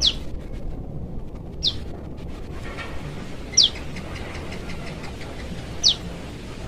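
A young prenjak lumut gives four short, sharp calls, each a quick downward-sliding chirp, about two seconds apart. These are a juvenile calling for its parent.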